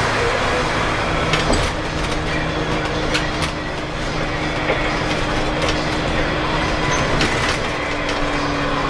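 Scania L94UB bus on the move, heard from the front of the cabin: the rear-mounted Scania DC9 9-litre six-cylinder turbo diesel runs steadily under a low hum and road rumble, with scattered clicks and rattles through the body.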